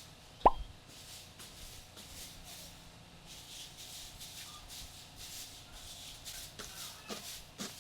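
A single sharp knock about half a second in, then faint rustling with a few light clicks near the end.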